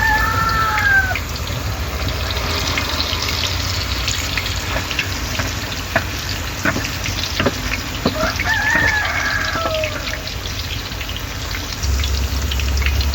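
A rooster crowing, a call trailing off about a second in and another about eight and a half seconds in, over a steady hiss with a few sharp clicks.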